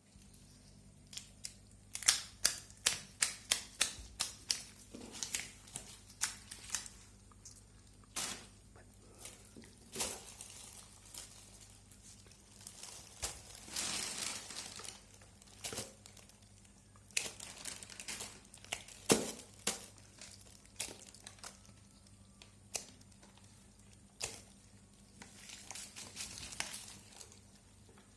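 Irregular sharp clicks and taps with crinkling handling noise, and a longer rustle about fourteen seconds in.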